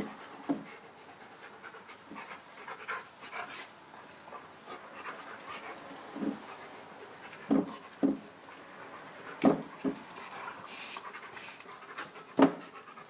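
A dog panting at close range, broken by several short, loud puffs of breath.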